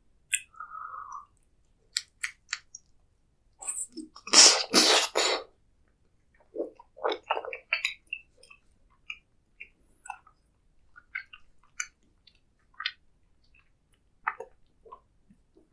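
Close-miked eating: chewing with scattered mouth clicks and a louder run of bites about four seconds in.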